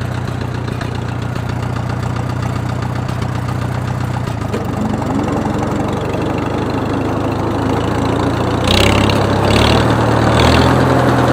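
Farmall H tractor's four-cylinder engine running with a knock, which the owner is trying to pin down as either a tappet or worn cam lobe or something deeper in the bottom end. The engine note shifts about four seconds in, and it gets louder about two-thirds of the way through, with three short hissing noises.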